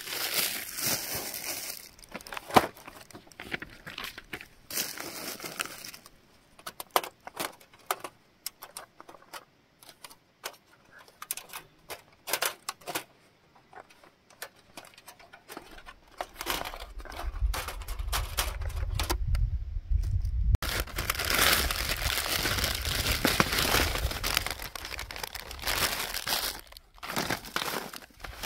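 Packaging of a disposable barbecue being handled: the cardboard box and its paper and plastic wrapping crinkle and rustle in scattered bursts. A low rumble and hiss runs through the second half.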